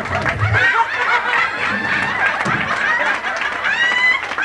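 A crowd of many voices calling out and laughing at once, in short high-pitched yelps and hoots, with one rising whoop near the end.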